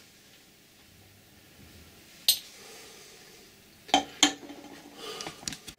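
A few sharp clicks and light knocks of hard objects being handled over quiet room tone: one click about two seconds in, two close together around four seconds, then a short run of small rattling knocks near the end.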